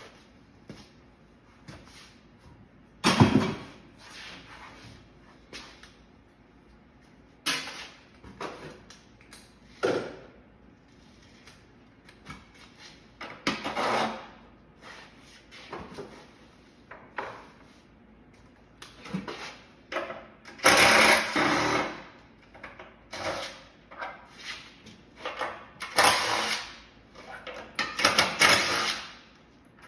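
Metal knocks and clanks from an air-conditioning unit's sheet-metal casing being dismantled, with several short bursts of a power tool running, the longest a little after twenty seconds in.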